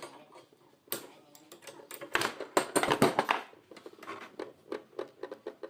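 A run of sharp clicks and knocks, densest and loudest in a cluster from about two to three and a half seconds in, like hard objects being handled and tapped.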